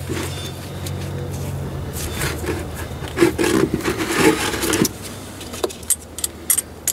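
Metal scraping and rubbing as a wrench works a drain plug out of the tractor's transmission housing, with irregular clicks between about two and five seconds in, over a low steady hum that fades about five seconds in.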